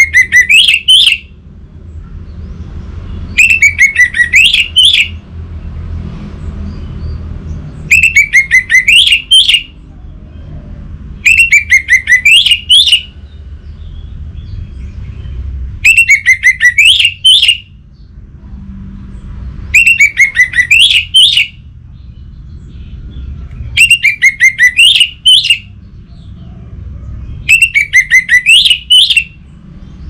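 Orange-headed thrush singing: eight short phrases of rapid, ringing notes, each about a second and a half long and coming about every four seconds, over a low steady hum.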